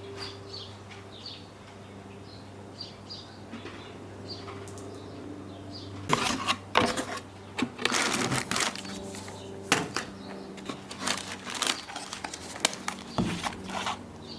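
Faint bird chirps over a low steady hum. From about six seconds in, a run of sharp clicks and knocks like objects being handled and set down.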